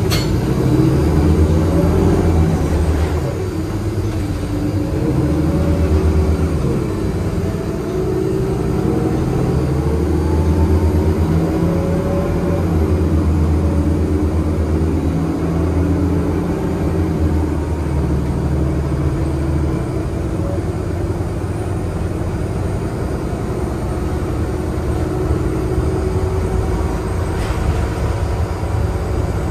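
Cummins ISL-G 8.9-litre six-cylinder natural-gas engine and Allison six-speed automatic transmission of a 2016 Nova Bus LFS city bus, heard from inside the bus while it is under way. The engine drone rises and falls in pitch as the bus pulls and shifts, then eases off about twenty seconds in.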